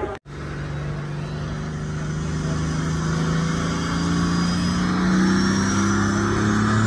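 Engine of a pulling vehicle under heavy load, getting steadily louder as its pitch slowly climbs, with a thin high whine rising over it. It cuts in after a brief dropout near the start.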